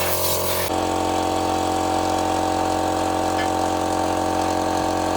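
An engine running steadily at idle, with an even droning note. Under a second in, the sound changes abruptly to a slightly different steady note with less hiss.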